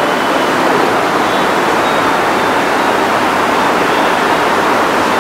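Steady, even rushing hiss of background noise, with no distinct events.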